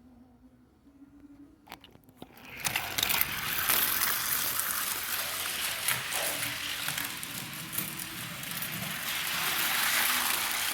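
A click, then from about two seconds in a loud, steady rushing rattle of Hot Wheels die-cast cars running down a plastic track.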